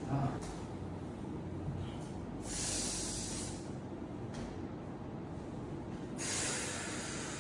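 A person taking two long, hissing breaths of about a second each, one about two and a half seconds in and one near the end.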